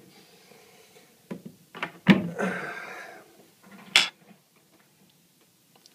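Handling noises on a workbench: a few light clicks, a louder knock about two seconds in followed by about a second of scraping, and a sharp click near four seconds.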